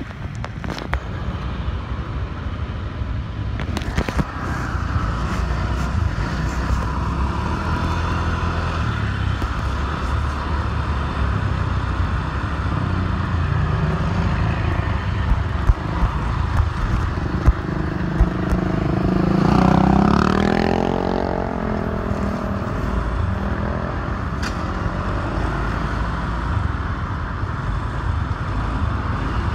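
Motor scooter engine running under way in town traffic, with road noise and other vehicles around it. About two-thirds of the way through, a louder engine swells, its pitch gliding, and fades again as a vehicle passes close.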